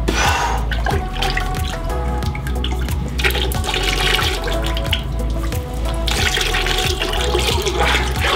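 Liquid ceramic glaze poured from a cup over a large pot, running and splashing back into the glaze bucket, in two longer pours about three seconds in and again near the end. Background music with a steady beat plays throughout.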